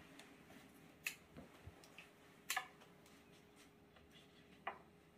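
Florist's scissors snipping flower stems: three short, sharp clicks about a second and a half apart.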